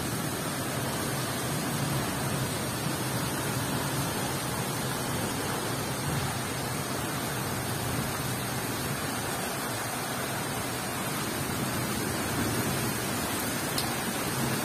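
Heavy rain pouring down steadily, a constant even hiss.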